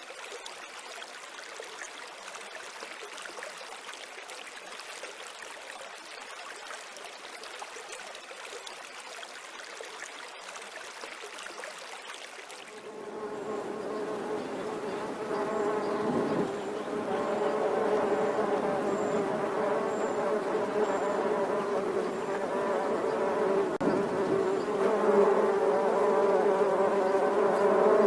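A steady, even hiss for about the first 13 seconds. Then insects start buzzing close by, a steady pitched hum that gets louder toward the end.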